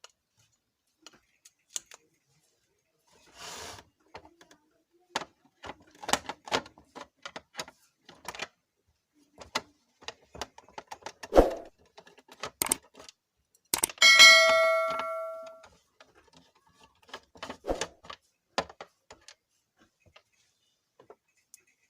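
Screwdriver and hand clicks and knocks on the mixer grinder's plastic body while the bottom cover's screws are undone, in irregular taps. About fourteen seconds in, one loud metallic ding rings out and fades over a second or so, a small metal part or tool struck or dropped.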